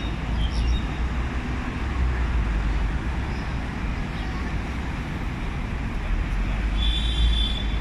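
Outdoor background noise: a steady low rumble with a hiss over it, and no barking.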